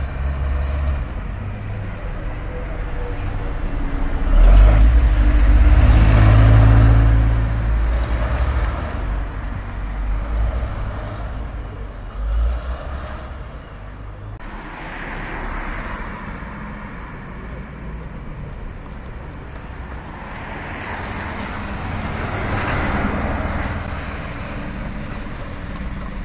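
Double-decker buses passing on the road, their diesel engines rumbling with tyre and traffic noise. The loudest pass comes a few seconds in, and another bus draws near toward the end.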